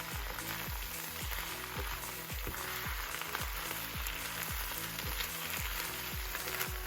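Chinese leafy lettuce stems sizzling steadily in hot oil in a wok over high heat, with background music with a steady beat underneath.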